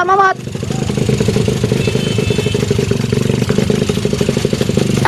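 Several small single-cylinder dirt bikes, Kawasaki KLX 150s, chugging at low revs in a close, rapid beat as they climb a muddy, rutted hill.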